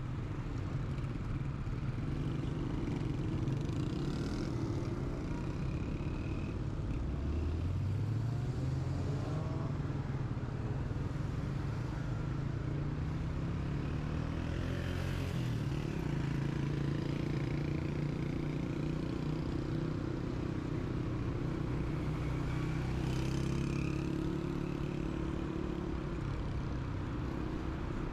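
Road traffic: engines of passing motor vehicles run steadily, and one speeds up with a rising pitch about eight seconds in.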